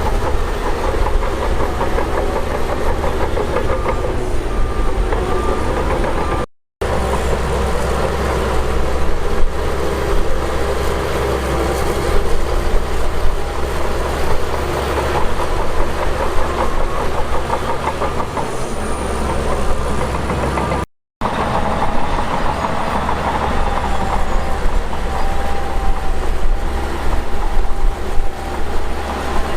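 Heavy diesel earthmoving machinery working under load, its engine running steadily with a dense metallic clatter. The sound breaks off for an instant twice.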